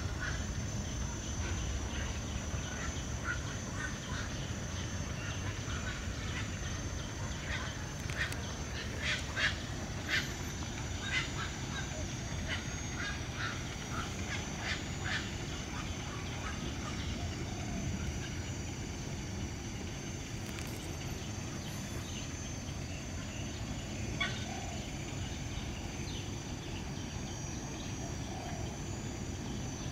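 Birds calling in short, sharp notes: a run of them from about eight to fifteen seconds in and one more later, over a steady low rumble and a steady high hiss.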